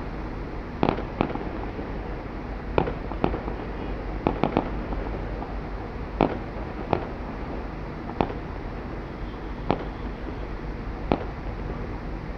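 Fireworks going off: about a dozen sharp bangs at irregular intervals, some in quick pairs or threes, over a steady background rumble.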